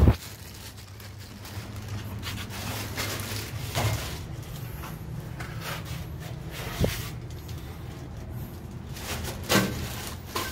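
A loud thump right at the start, then a few scattered knocks and bumps over a low steady background rumble.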